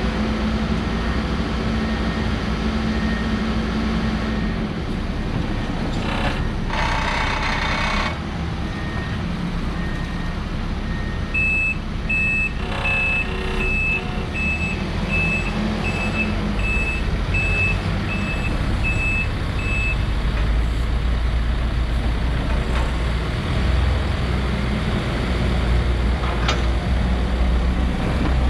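Diesel engine of a 2013 Case 590 Super N backhoe loader running steadily, with a back-up alarm beeping about a dozen times at an even pace in the middle. A brief hiss-like noise comes a few seconds before the beeping.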